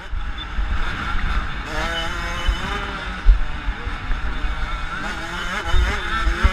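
Motocross bike's engine running hard, its revs rising and falling with the throttle, over a low wind rumble on the onboard microphone.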